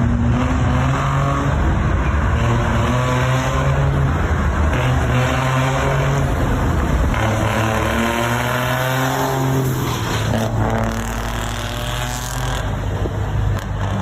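Truck engine running loud, its pitch climbing in stretches and dropping back several times.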